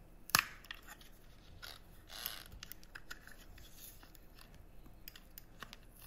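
Worn rubber tire being pulled off a Roomba i7+ drive wheel by hand. There is a sharp snap about a third of a second in as a section of the tire's inner track pops free of the plastic wheel, then faint clicks and a brief rub around two seconds in.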